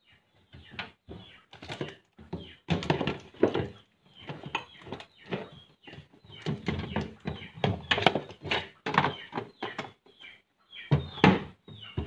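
A clear plastic container being slid into a small plastic cabinet and the cabinet doors being handled and pushed shut: a run of irregular knocks, bumps and scrapes of plastic on plastic.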